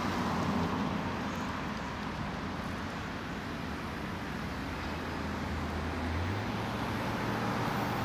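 Road traffic on a city street: a steady rush of passing cars, with one engine's low hum that steps up in pitch a little past six seconds in.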